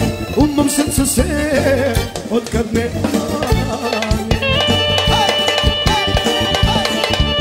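Live Balkan band music led by a clarinet playing a busy melody, with accordion and a steady drum beat. A long held note comes in about halfway.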